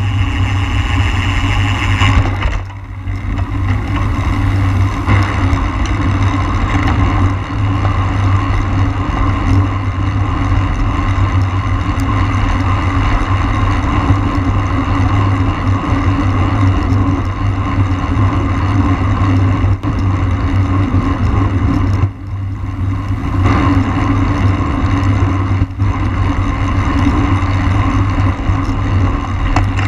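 Wind rushing over the microphone of a camera on a road bike at racing speed: a loud, steady rumble that eases briefly about two seconds in and again a little past twenty seconds.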